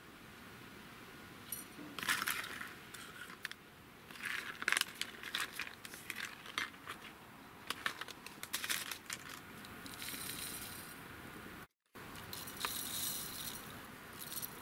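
Whole dry spices, such as peppercorns and mustard and coriander seeds, spooned into empty glass jars: scattered light rattles and ticks of small hard seeds against the glass, some in quick clusters.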